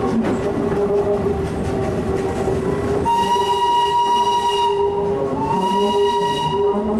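Steam tram locomotive's whistle sounding two blasts, the first about a second and a half long and the second a little shorter, a warning at a road level crossing. Under it runs the steady rumble and rattle of the moving train.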